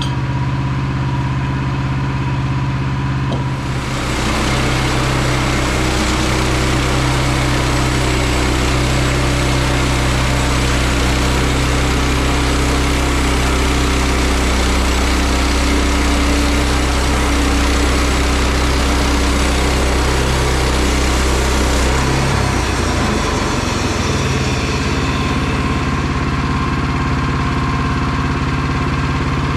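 Woodland Mills HM122 portable bandsaw mill's gas engine running. About four seconds in, a loud rasping noise joins it, typical of the band blade spinning and cutting through a log. Near the end the engine's pitch drops as the cut ends and it settles back to idle.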